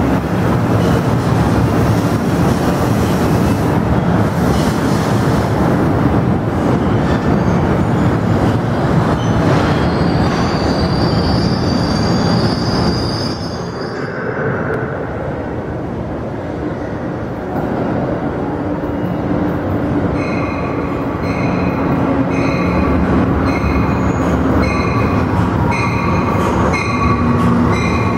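A New Jersey Transit bilevel commuter train rolls out past the platform, its cars rumbling by, with a high wheel squeal about halfway through. After a few quieter seconds, an Amtrak train comes along the next track, its rumble carrying a ringing tone that repeats about once a second.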